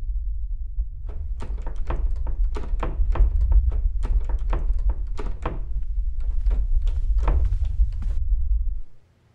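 A wooden door being knocked and rattled in quick, irregular knocks a few times a second, over a deep steady rumble. The rumble cuts off suddenly near the end.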